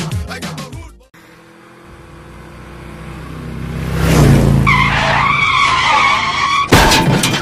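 A film sound-effect sequence. Music fades out, then a rumbling rush swells up over a few seconds into a wavering high screech. A sudden loud hit cuts it off near the end.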